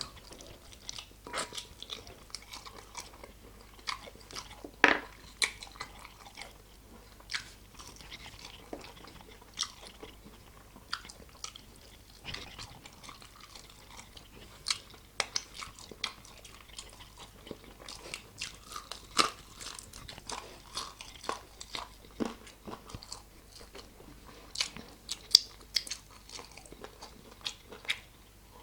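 A person biting into and chewing chicken wings close to the microphone: a steady run of short, sharp crunches and wet mouth clicks, a few louder bites standing out.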